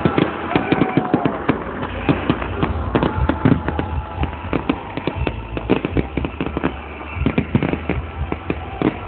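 Fireworks display going off, a dense, irregular run of bangs and crackles, many reports overlapping with no pause.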